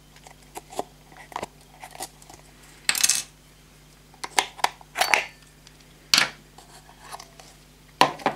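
Small screwdriver clicking and scraping against the plastic battery compartment of a solar LED light as its Ni-MH AA cell is pried out: a series of sharp clicks and short clatters, several of them loud.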